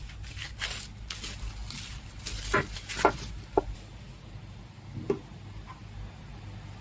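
Bubble wrap crinkling and rustling as it is pulled off a plastic handheld device. It dies away after about three and a half seconds, followed by a light knock or two of the hard plastic casing being handled about five seconds in.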